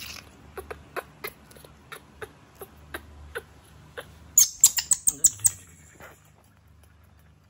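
Baby monkey giving a quick run of about six shrill, high-pitched squeals about four and a half seconds in, after a few seconds of scattered small clicks.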